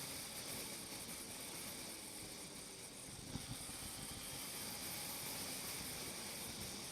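Motorcycle riding in traffic heard from a helmet-mounted camera: steady wind and road noise over the engine running, with a brief knock about three and a half seconds in.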